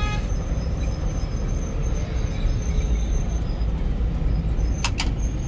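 Bus engine and drivetrain running with a steady low rumble, heard from inside the driver's cab while driving. Two short, sharp sounds come close together about five seconds in.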